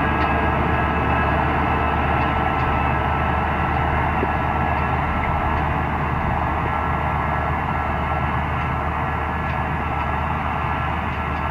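New Holland T5060 tractor's diesel engine running steadily under load as it pulls a Lemken cultivator through stubble, a constant drone that fades slightly as the tractor moves away.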